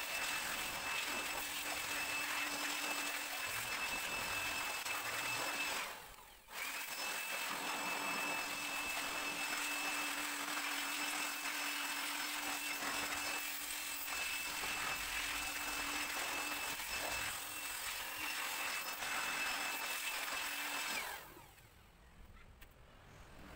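Electric air blower running steadily with a high whine, blowing out the washed engine bay's terminals, sockets and sensors. It cuts out briefly about six seconds in, starts again, and stops near the end.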